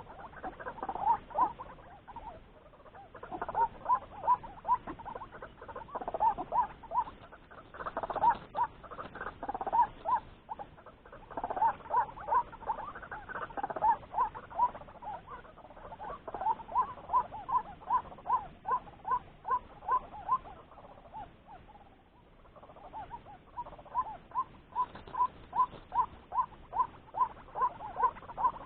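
White-breasted waterhen calling: long series of loud, short 'kruak' notes, about two to three a second, with a brief pause a little past the middle before the series starts again.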